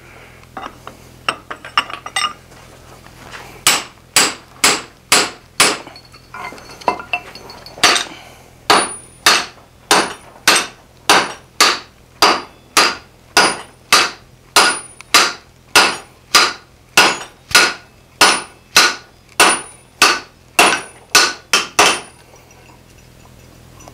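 Hand hammer and sledgehammer striking a red-hot steel hammer-head blank on an anvil. After a few light taps, steady blows come at about two a second from about four seconds in, many with a brief high ring, and they stop about two seconds before the end.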